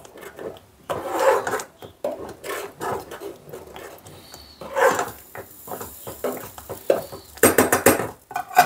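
A metal spoon stirring polenta in a small metal cooking pot, with rasping scrapes against the pot's bottom and sides. Near the end, a quick run of sharp metallic clatters as the metal lid is set back on the pot.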